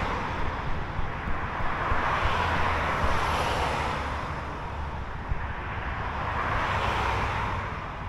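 Motorway traffic heard through trees: a steady hiss of tyres that swells and fades as vehicles pass, over a low rumble.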